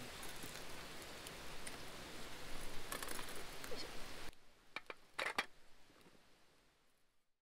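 Small wood fire crackling under a grill, with a steady hiss and scattered sharp pops. About four seconds in it drops away suddenly; a few short knocks follow as a pot is set down, then the sound fades out.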